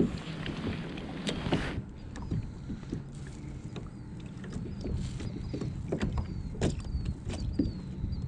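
Small waves lapping and knocking against the plastic hulls of two kayaks sitting side by side, with irregular clicks and knocks over a low rumble of wind on the water. From about two seconds in, a faint high chirp repeats every second or so.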